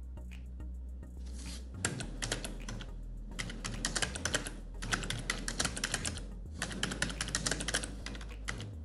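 Typing on a computer keyboard: quick runs of keystrokes in about four bursts, starting about two seconds in and stopping just before the end.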